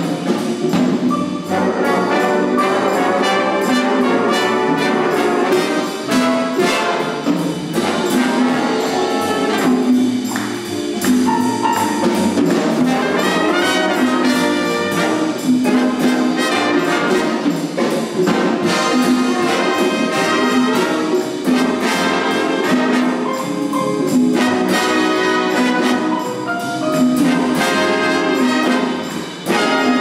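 A big band playing lively swing live: trumpets, trombones and saxophones play together in a full ensemble passage over a steady rhythm section.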